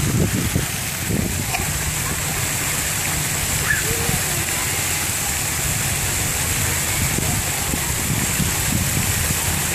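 Water jets of a splash-pad fountain spurting and splashing onto wet pavement, a steady rushing noise, with children's voices faintly in the background.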